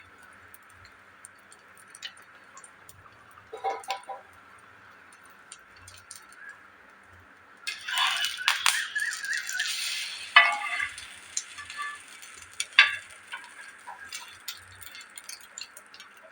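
Cooking utensils clinking and rattling against a flat griddle pan as egg-dipped bread is fried and turned. A short clatter comes about three and a half seconds in, then a louder, noisier stretch of clattering about eight to ten seconds in, followed by a few sharp clinks.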